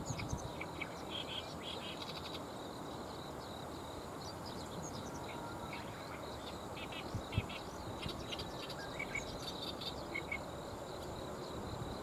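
Riverside outdoor ambience: a steady low rush with many short, high-pitched chirps from small animals scattered throughout, and a faint low thump about seven seconds in.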